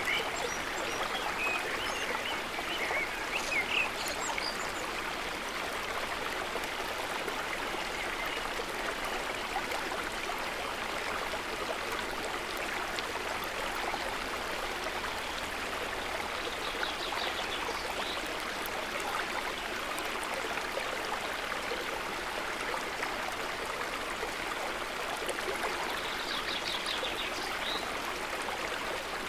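River water running steadily over stones, an even rushing and burbling, with a few faint high chirps near the start and twice later on.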